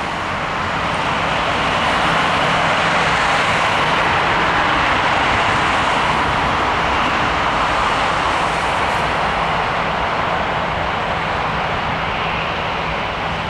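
Jet engines of an Airbus A320 airliner: a loud, steady rushing noise that swells over the first couple of seconds and then holds.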